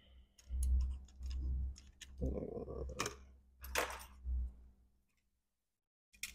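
Scattered sharp clicks and taps with low thumps, as of small parts and tools being handled by hand; they stop about five seconds in, with one more click near the end.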